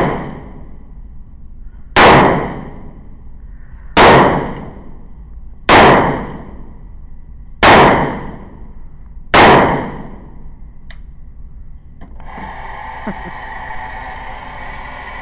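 A .22 revolver fired five times, one shot about every two seconds, each crack followed by a short echo off the walls of the indoor range. From about twelve seconds in, a steady motor whir as the electric target carrier runs the paper target back up the lane.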